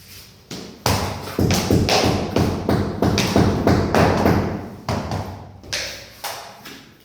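Mallet knocking SPC click-flooring planks into place: a quick run of solid knocks, about three a second, then a few slower, spaced knocks near the end.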